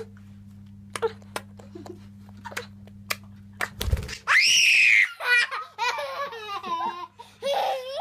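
A young boy gives one loud, high squeal about halfway in, then breaks into a run of laughter. Before that there are only a few faint clicks and a low hum.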